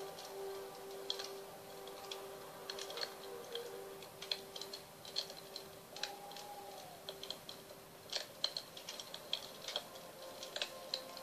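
Wood fire crackling with irregular sharp pops, over the lingering ring of a singing bowl whose steady tones fade away about two thirds of the way through.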